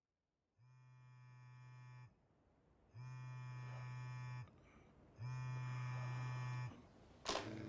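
Phone vibrating: three buzzes of about a second and a half each, getting louder one after another, then a sharp knock near the end.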